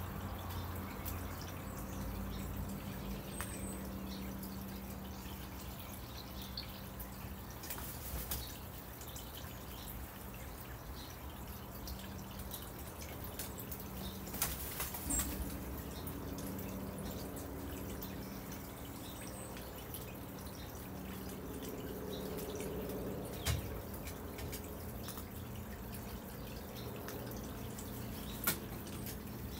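Northwestern crows pecking at food in a ceramic dish: scattered sharp clicks of beak on ceramic, a few louder ones standing out, over a steady low hum.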